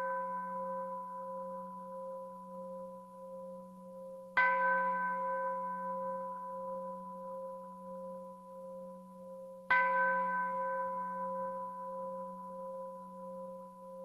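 A Buddhist bowl bell is struck about four seconds in and again about five seconds later. Each stroke rings on in a few steady tones that slowly fade, and at the start the ring of an earlier stroke is already dying away.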